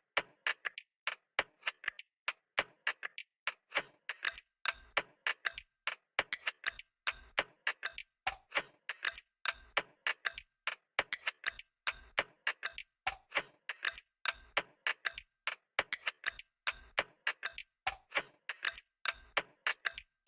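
Rhythmic clicking and ticking percussion in an ambient electronic mix, about four sharp ticks a second; from about four seconds in a soft low thump falls about once a second.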